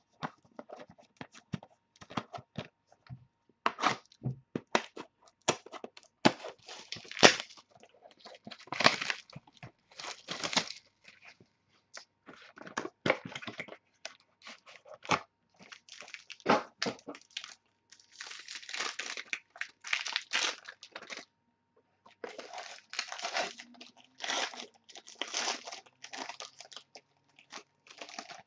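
Hands handling trading cards and their packaging: a run of rustles, scrapes and crinkles, with longer crinkling stretches in the second half.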